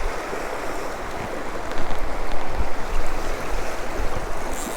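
River water rushing steadily, with wind buffeting the microphone in uneven low rumbles.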